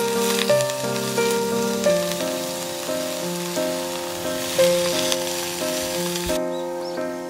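Strips of bamboo shoot sizzling in a hot oiled wok as they are tipped in from a plate and turned with chopsticks. The sizzling stops suddenly about six seconds in, with background piano music throughout.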